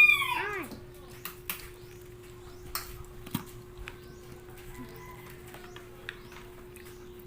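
The tail end of a rooster's crow, falling in pitch and fading out within the first second. Then only faint scattered clicks over a steady low hum.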